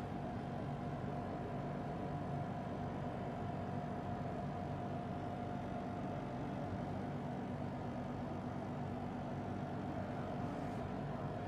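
Steady running noise of a car being driven, an even rumble with a constant hum and no change in speed.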